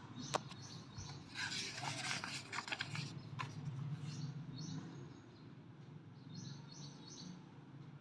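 A paperback book page being turned by hand: a click, about two seconds of paper rustling, and another click as the page settles. In the second half, short high bird chirps come in small groups.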